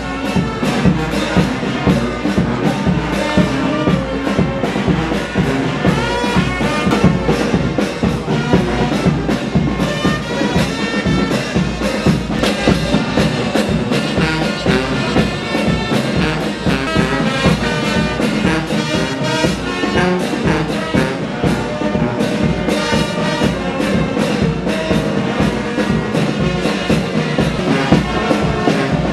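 Music with brass instruments to the fore and a steady beat.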